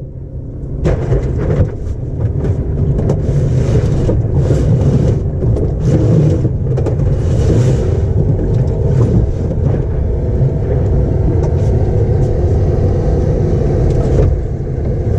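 Mercury outboard motor running steadily under way, a continuous engine drone with low rumble. The motor is running at reduced power.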